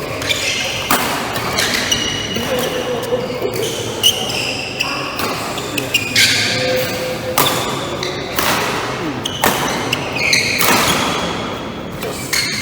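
A badminton rally: rackets striking the shuttlecock in a string of sharp, echoing hits about once a second, with shoes squeaking on the court floor.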